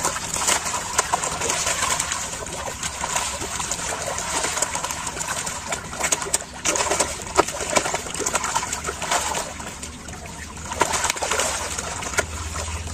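A crowd of catfish thrashing and slapping at the water's surface in a feeding frenzy: a dense, irregular splashing and crackling.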